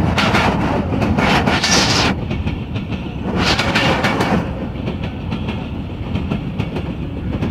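Pakistan Railways passenger coaches passing close by at speed: steel wheels clattering over the rail joints under a rushing rumble. Loud rushing surges come in the first half and ease after about four seconds.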